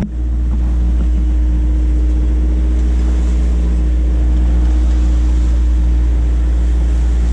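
Sailboat's inboard engine running steadily under power, a constant low drone with a steady hum above it.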